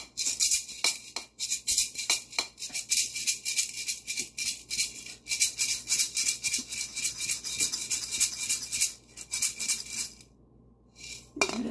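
A pair of maracas, one red and one brown, shaken quickly in a steady stream of dry rattles that stops about ten seconds in.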